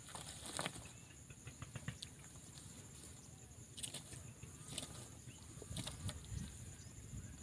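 Dry grass rustling and scattered crackles as a Komodo dragon pulls and tears at a goat, over a steady high-pitched hiss.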